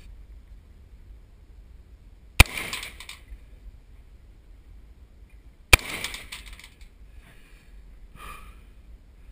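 Two rifle shots from an AR-15 fired from a prone position, about three seconds apart, each followed by a short echo across the range. A fainter, brief sound comes near the end.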